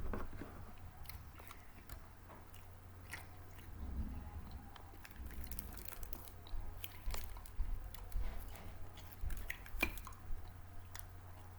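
A person chewing snack food close to the microphone, with scattered short crackles through the chewing.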